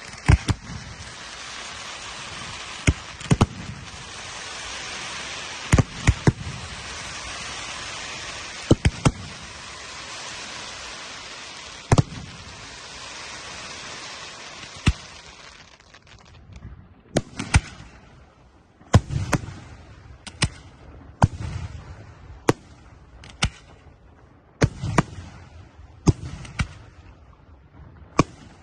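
Aerial fireworks shells bursting with sharp bangs. For about the first fifteen seconds the bangs are scattered over a steady hiss. Once the hiss stops, the bangs come about one a second.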